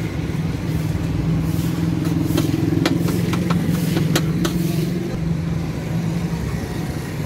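A motor vehicle's engine running close by as a steady low hum, growing louder in the middle for a few seconds. Several sharp clinks of a steel spoon against steel food trays sound over it.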